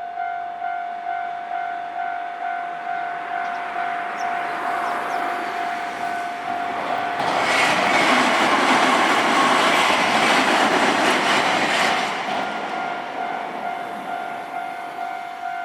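Japanese level-crossing warning bell ringing in a steady fast rhythm of about two strikes a second. A Nankai Electric Railway train passes through the crossing from about 7 s to 12 s, its rumble and wheel noise swelling to drown the bell, then fading as the bell rings on.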